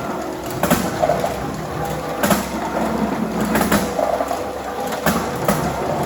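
Conveyor-fed dog-treat counting machine running: a steady machine hum and rattle, broken by irregular sharp clicks and clatters several times as treats are fed through.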